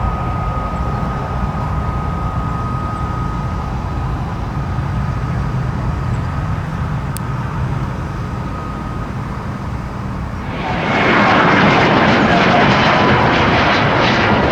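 Jet airliner engines: a steady low rumble with a thin whine, then about ten seconds in a much louder roar sets in and holds.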